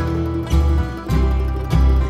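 Background bluegrass-style music: plucked strings over a bass note on every beat, a little under two beats a second.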